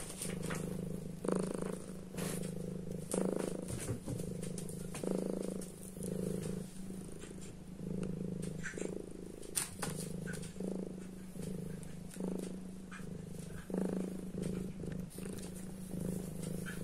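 A kitten purring right at the microphone, the purr swelling and easing about once a second with its breathing. Brief scratchy rubs of fur against the microphone come in now and then.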